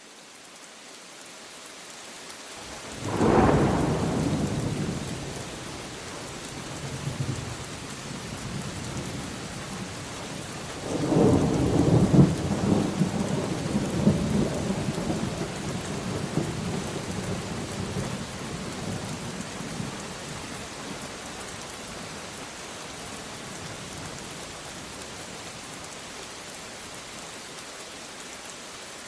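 Steady rain falling, with thunder: a sharp clap about three seconds in that rumbles away, then a longer rolling peal from about eleven seconds that fades back to the rain alone.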